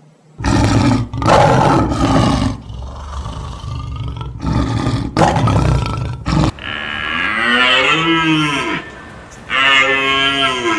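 Animal sound effects: three rough, rasping roars like a big cat's, then two long mooing calls that rise and fall in pitch, like a cow's.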